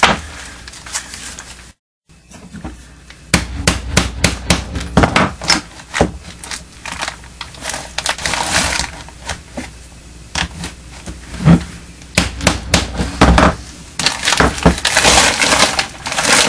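Plastic tarp crinkling as it is handled, with many small irregular clicks and knocks from metal grommet parts on a wooden bench. Two heavier knocks about two-thirds of the way through, hammer blows setting a grommet in the tarp.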